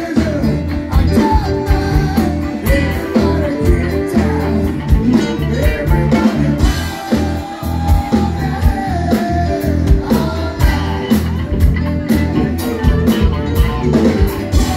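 A live blues band playing: electric bass and drum kit keeping a steady beat, with a melody line over it.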